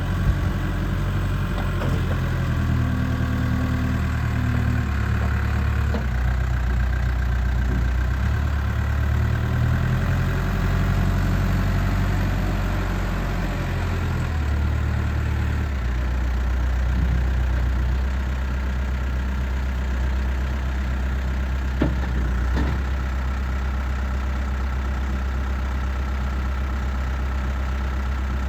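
Diesel engine of a Case 580 Super M Series 2 backhoe loader running. Its engine note shifts a little during the first half, then it idles steadily. A couple of brief knocks come about three-quarters of the way through.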